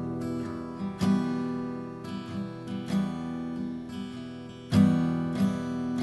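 Background music: acoustic guitar strumming chords, with a strong strum about a second in and another near the end.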